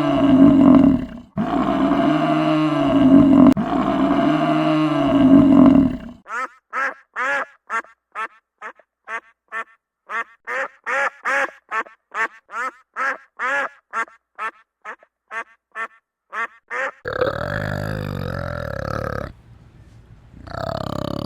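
A string of edited animal calls. Long, deep drawn-out calls come in cut segments first. Then, about six seconds in, a fast run of short duck quacks follows, about two to three a second, for some ten seconds. Near the end a rougher, steadier call breaks off briefly and starts again.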